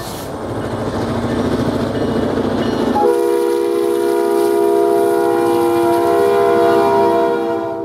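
A train rumbling, then about three seconds in a locomotive air horn sounds one long blast, several notes at once in a steady chord, over the rumble.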